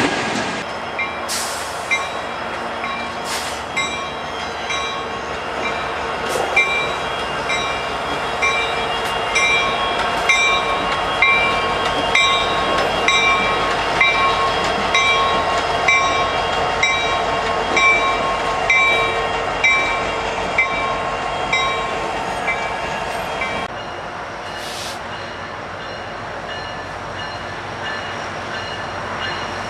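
A diesel locomotive's bell ringing about once a second over the slow rumble of a passenger train backing into a siding. About 24 seconds in, this gives way to the quieter, steady sound of a distant approaching freight train.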